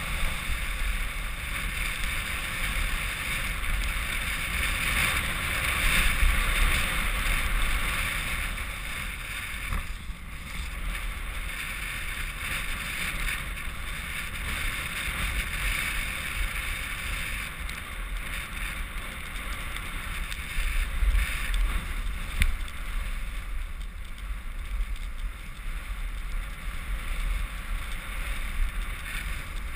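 Steady hiss of snow under a skier or snowboarder gliding down a packed snow track, with low wind rumble buffeting the action camera's microphone.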